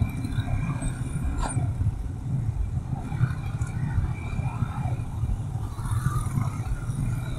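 Motorcycle riding noise: a steady low rumble of wind on the camera's microphone over a Yamaha MT-15's single-cylinder engine running on the move. Faint higher tones come and go above it.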